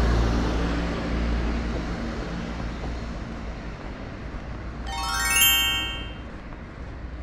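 A bright rising chime glissando, a quick ladder of ringing tones climbing in pitch, sounds about five seconds in as an edited sound effect. Under it runs a steady low street rumble.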